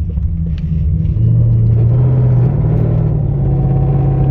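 Porsche's engine pulling under acceleration, heard inside the cabin with road noise; its note swells about a second in and steps up in pitch about halfway through.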